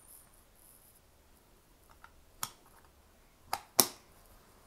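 Lid of a Kodak 35mm film case being fitted and pressed shut over the film rolls: three sharp clicks, one about halfway through, then two in quick succession near the end, the last the loudest.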